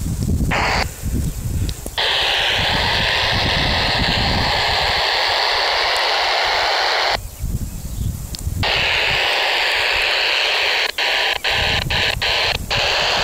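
Baofeng UV-5R handheld FM radio hissing with open-squelch static on the SO-50 satellite's downlink, the satellite barely above the horizon and no voice coming through yet. The hiss cuts out briefly a few times, with several quick dropouts near the end.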